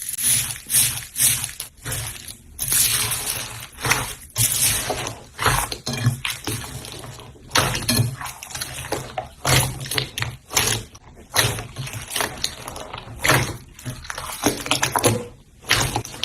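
Slime being squished and worked: wet squelching and sticky popping in quick, irregular bursts.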